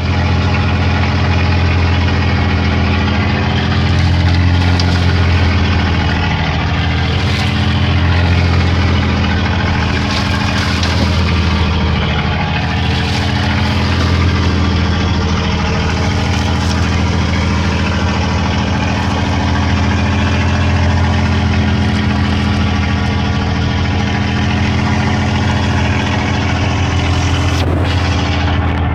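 A boat's engine running steadily at an even speed, heard loud and close, with a hiss of water or wind and a few brief rushes over it.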